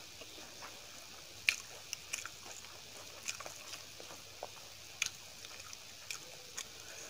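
Wet squishing and scattered sharp clicks of fingers mixing rice with dal and curry on a steel plate, the loudest clicks about a second and a half in and at five seconds.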